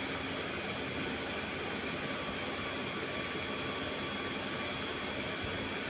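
Steady background hiss with a faint, even hum: a fan-like whoosh that stays level throughout, with no distinct clicks or handling sounds.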